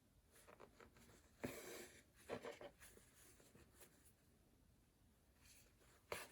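Faint scratchy rustling of denim being handled and thread drawn through the fabric during hand-stitching of a jeans hem, in a few short pulls, with a sharp tick near the end.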